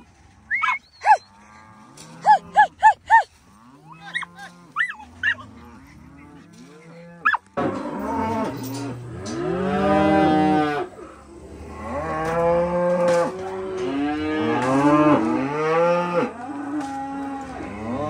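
Many freshly weaned F1 baldy calves bawling, their calls overlapping, a sign of calves missing their mothers on the second day of weaning. The bawling is fainter in the first part, with short high yips from a herding dog, and turns loud and close from about seven and a half seconds in.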